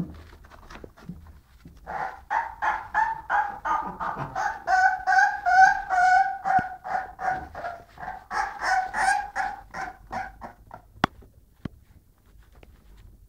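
Very young bulldog puppy crying in a fast series of short, high squeaky yelps, about three a second, starting about two seconds in and stopping near the end. A couple of sharp clicks follow.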